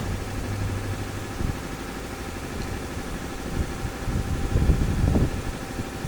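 Car engine idling steadily, with a few louder low thuds about four to five seconds in.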